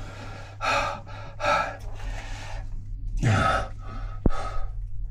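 A man breathing hard in about four sharp gasps and exhales, over a steady low machinery hum, with a single click about four seconds in.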